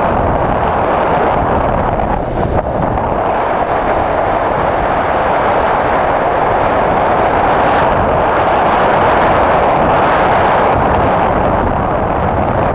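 Adventure motorcycle riding at a steady speed on a gravel road, heard from a camera mounted on the bike: a steady rush of wind on the microphone over the engine and tyre noise.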